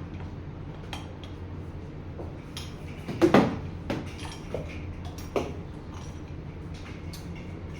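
Dishes and utensils knocking and clinking now and then, with the loudest clatter about three seconds in, over a steady low hum.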